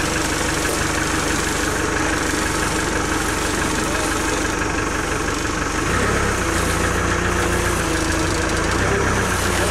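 Diesel engine of a JCB backhoe loader running steadily at idle, its low end getting louder about six seconds in.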